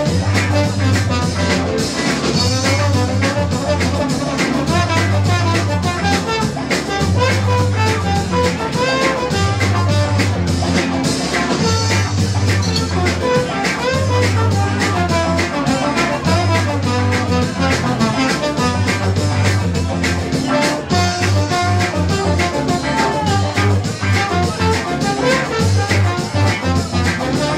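Live band playing an instrumental break: a trombone carries the melody over electric guitar, bass line and drum kit.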